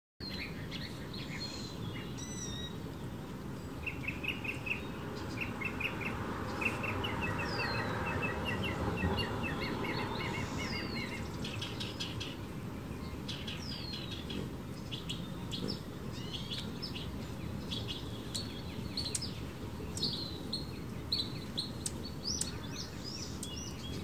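Small songbirds chirping and singing, with runs of quick repeated notes in the first half and many short downward-slurred chirps later, over a steady background hiss.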